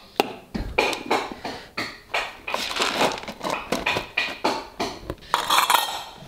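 Quick clicks and clatter of a pet's food bowl and utensils as the pet is fed its breakfast.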